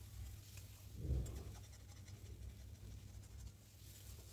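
Flat metal spatula scraping and turning spiced potato filling in a metal kadhai, faint, with one louder stroke about a second in, over a low steady hum.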